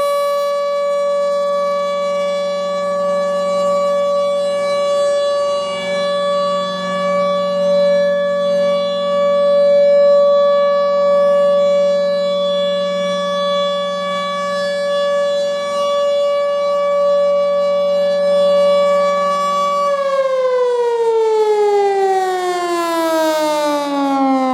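Federal Signal Thunderbolt 1000 outdoor warning siren sounding its steady alert tone, then cut off about 20 seconds in and winding down in a steadily falling pitch.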